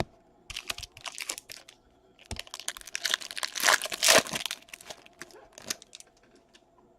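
A foil baseball card pack wrapper being torn open and crinkled, in two bursts of crackling with the loudest about four seconds in, followed by a few light clicks.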